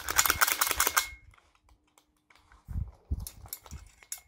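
Rapid string of .22 LR shots from an AR short-barreled rifle running a CMMG .22 conversion kit with a Franklin Armory binary trigger, lasting about a second. A few softer knocks and clicks follow near the end.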